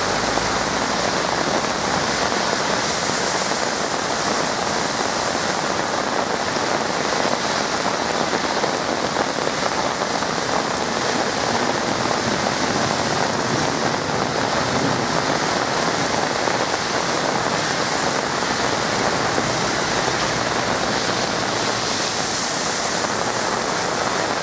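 Heavy rain pouring down in a steady, loud hiss, a cloudburst downpour.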